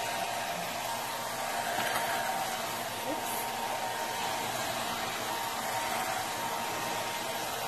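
Hand-held hair dryer running steadily, an even rush of air with a faint steady whine over it.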